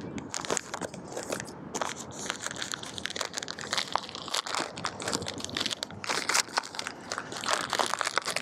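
Quick, continuous crinkling and crackling of a bag being opened and handled close to the microphone as an EMP cloth is taken out of it.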